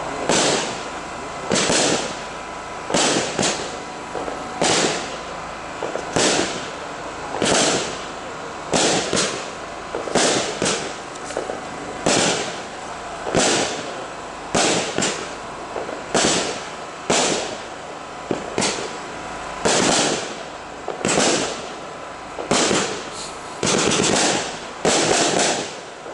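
Consumer multi-shot firework cake (Vulcan Pro Series) firing shot after shot, about one a second, each shot a sharp bang as a red-tailed shell launches and breaks into white strobing stars. The shots come closer together near the end in the five-shot finale.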